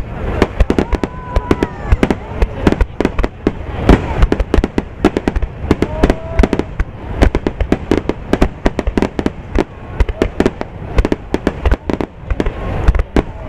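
Aerial firework shells bursting in a dense barrage, sharp bangs following one another several times a second with no pause.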